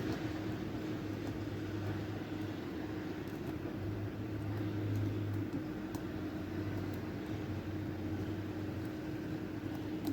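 A steady machine hum with a low held tone, and a few faint small ticks from a pick working the pins of a challenge lock.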